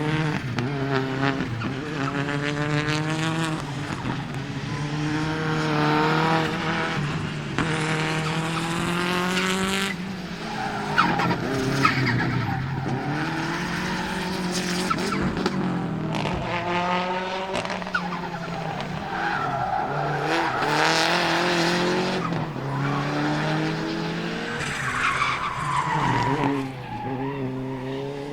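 Subaru Impreza GC8 Group A rally car's turbocharged EJ20 flat-four engine racing, revving up and falling back again and again through the gears, with tyres skidding on loose gravel. A couple of sharp cracks sound near the middle.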